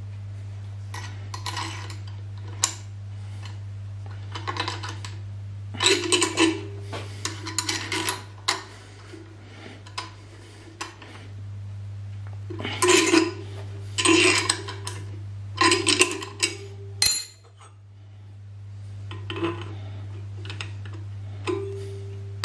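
Metal clinks and scrapes of a spanner and steel parts being handled on a milling machine table, in four bunches of sharp knocks, over a steady low hum.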